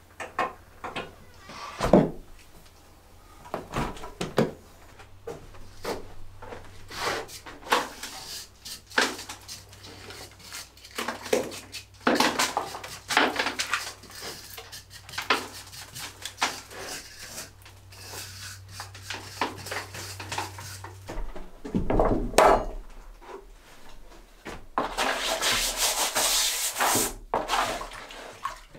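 Irregular scraping and rubbing strokes with occasional sharp knocks, from mortar and stone being worked by hand on a dry-stone wall. Near the end comes a longer gritty scraping as sandy mortar is stirred by hand in a plastic bucket.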